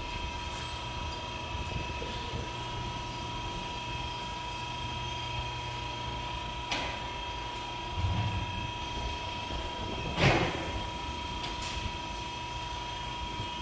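Steady mechanical hum of tire-shop equipment, with a few metal clanks as a long steel tire iron levers the bead of a large OTR tire off its steel rim. There are two sharp clanks, about a third and three quarters of the way through, the second the loudest, and a dull thump between them.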